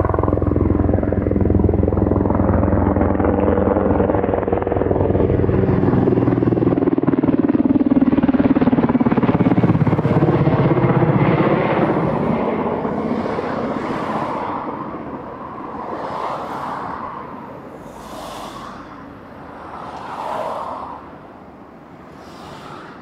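SH-60 Seahawk-type helicopter flying past, its rotor blades making a rapid, even thumping. The tone drops in pitch as it goes by about eight seconds in, and the sound fades away over the second half.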